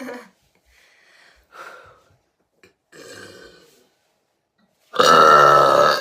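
A girl burping: a few short, quieter sounds, then one long, loud burp starting about five seconds in and lasting about a second.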